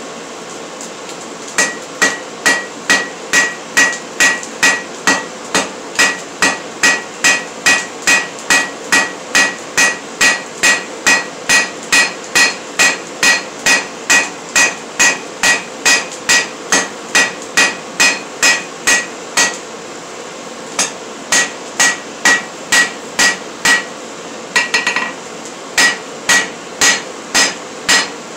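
Hand forging hammer striking a red-hot square steel bar on an anvil to draw out its end, about two blows a second, each with a short metallic ring. The hammering breaks off briefly about two-thirds through, then resumes. A steady hum runs underneath.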